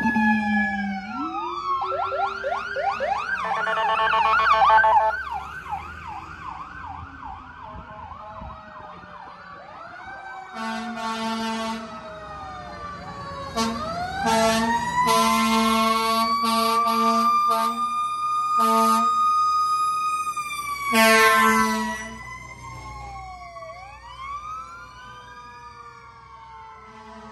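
Fire truck sirens, several overlapping: a fast yelp first, then long rising and falling wails, with a string of loud horn blasts in the middle, one long siren winding slowly up and back down.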